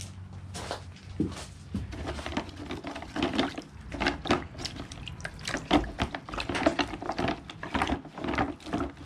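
Hands working teak wood pieces in a plastic bucket of water: irregular splashing and sloshing, with knocks of the wood pieces against each other and the bucket.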